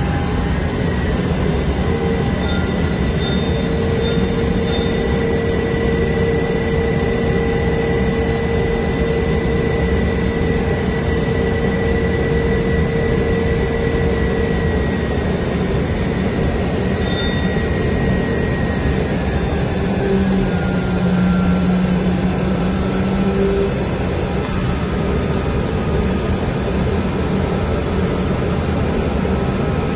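Steady, loud engine and airflow noise inside an Ilyushin Il-76 four-engined jet transport in flight, with several whining engine tones over it; one whine slides lower a little past halfway.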